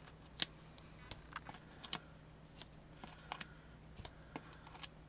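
Faint, irregular little clicks and ticks of foam adhesive dimensionals being peeled off their plastic backing sheet and pressed onto a paper card, about a dozen spread over a few seconds.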